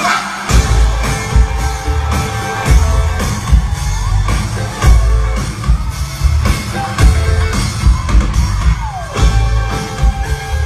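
Loud party music with a heavy bass beat, with voices shouting and whooping over it.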